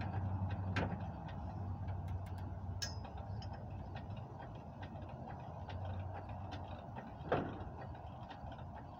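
Hydraulic floor jack being pumped with a long handle to lift the rear of a car: light clicks of the pump strokes over a low hum. There is a sharper knock about a second in and a louder metallic knock about seven seconds in.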